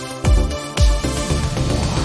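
Electronic background music with a steady kick-drum beat about twice a second over held chords, and a hissing sweep building in the second half.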